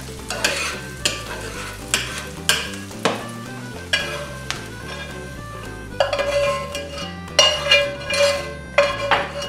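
A metal utensil scraping and clicking against a cast iron frying pan as browned onions and sausage are stirred and then scraped out into a ceramic bowl. The second half has sharper clinks that each ring briefly.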